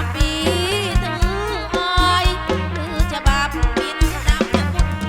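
Kantrum band music through a PA system: a wavering, sliding melody line over a steady bass and regular drum beats.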